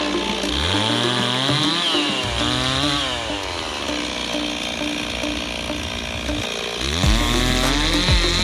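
Gas chainsaw cutting a downed tree, its engine revving up and dropping back several times. A steadier, lower-pitched stretch comes in the middle, then it revs high again near the end.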